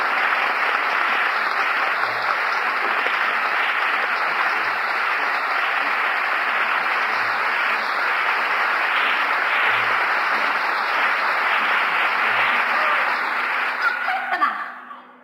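Theatre audience applauding steadily, then fading out quickly near the end. Heard through a so-so audience tape recording.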